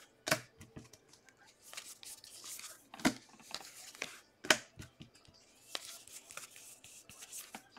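Baseball cards being flipped through by hand: card stock sliding and rustling against the stack, with a few sharp snaps as cards are moved across, the loudest two near the middle.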